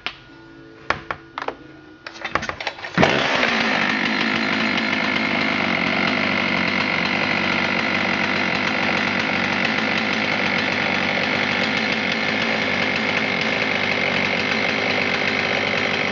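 Husqvarna 272 XP 72cc two-stroke chainsaw being started: a few sharp knocks, then a quick run of ticks as it fires, and it catches about three seconds in and runs steadily at a constant pitch.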